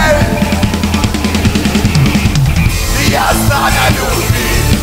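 Live worship band playing an upbeat rock passage: a drum kit beating fast under electric guitars and bass, with voices coming in about three seconds in.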